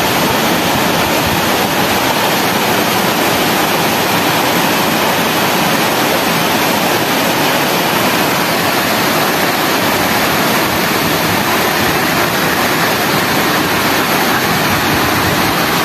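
Waterfall pouring into a deep plunge pool: a steady, loud rush of falling water.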